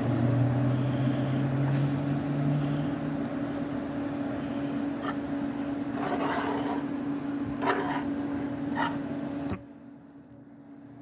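LUD-200LLC ultrasonic drilling machine running with a steady hum and hiss while its heart-shaped tool cuts into a gemstone, with a few short scraping bursts. It cuts off suddenly near the end, leaving a faint high steady whine.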